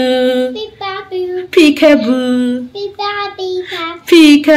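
A young child singing in short, wordless sung phrases with held notes and sliding pitch.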